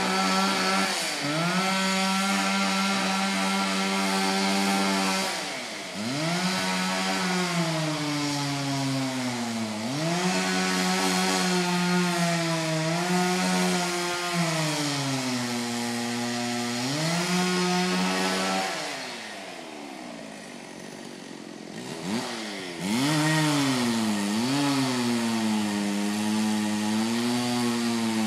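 Two-stroke chainsaw running at high revs while cutting into a tree trunk, its pitch sagging and recovering several times as the chain loads up in the cut. About two-thirds of the way through it drops to idle for a few seconds, then revs back up with its pitch swinging up and down.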